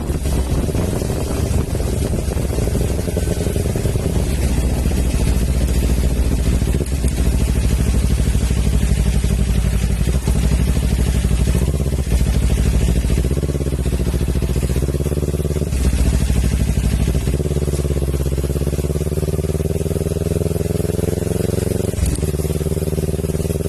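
Kawasaki Ninja 400's parallel-twin engine running through an Akrapovic exhaust, its engine speed dipping and rising a few times and climbing gently near the end.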